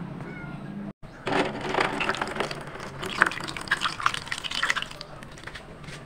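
Thick cassava cake batter being poured from a plastic bowl into a foil baking tray: wet glopping and sloshing with many small splats, starting about a second in and easing off near the end.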